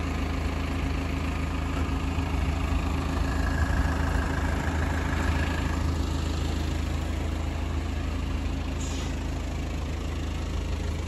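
Tractor engine running steadily at low speed, towing a boat trailer. A faint higher whine rises over it for a few seconds in the middle.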